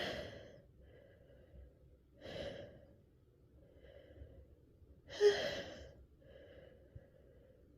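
A woman's breathy gasps and sighs between sneezes while her nose tickles, with a louder sharp gasp about five seconds in.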